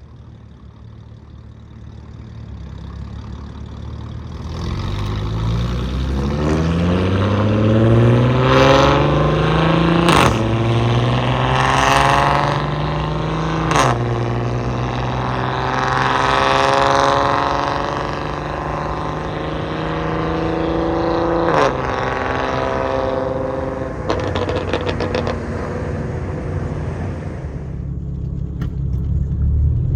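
Straight-piped Audi S4 exhaust accelerating hard through the gears. The engine note climbs for several seconds, then drops sharply at each upshift with a sharp crack from the exhaust. It holds steady, drops once more at a later shift, and fades near the end.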